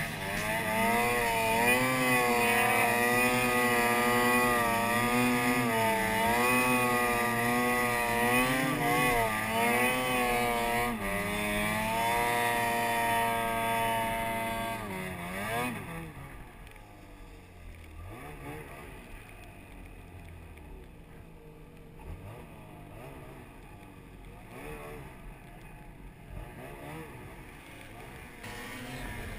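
Snowmobile engine running hard with its pitch rising and falling as the throttle is worked. About fifteen seconds in it drops off to a much quieter, low running.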